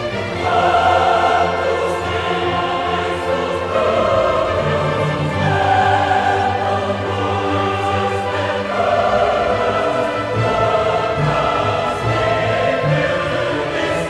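Background classical music with a choir singing long held notes, each chord lasting a second or two before moving on.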